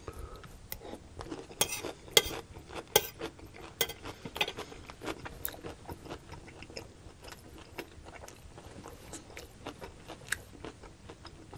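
Close-miked chewing of a mouthful of stir-fried celery, bok choy and mushrooms: wet crunches and mouth clicks, frequent for the first few seconds, then sparser.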